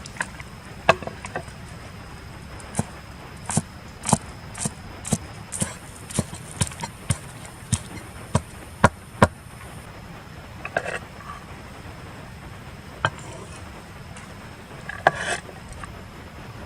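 Irregular sharp knocks or taps, about two a second for the first nine seconds and then a few scattered ones, over a steady faint high-pitched tone.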